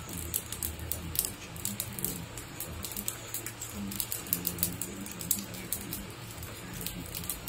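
Havan fire crackling, with many sharp, irregular pops and snaps as offerings are thrown into the flames. A low voice chants underneath.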